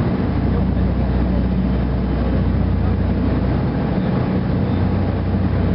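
Boat's engine running with a steady low drone, under a haze of wind and water noise.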